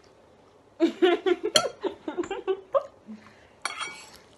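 Forks clinking and scraping against ceramic noodle bowls as eating begins: a quick run of loud knocks and clatters about a second in, and another short clatter near the end, with brief vocal sounds mixed in.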